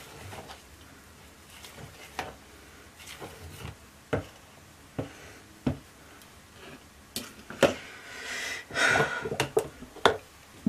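Scattered light clicks and knocks of utensils against a plastic mixing bowl: a spoon stirring lye water into soap oils, then the stick blender being picked up and set into the bowl, with a brief rustle near the end. The blender is not running.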